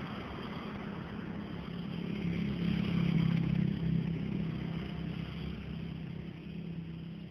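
A motor engine running with a low hum that grows louder to a peak about three seconds in and then fades, like a vehicle passing close by.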